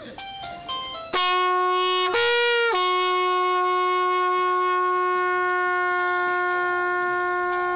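Bugle sounding a slow salute call at a funeral guard of honour: a few soft short notes, then about a second in a loud note, a step up to a higher note for about half a second, and back down to the lower note, held for about five seconds.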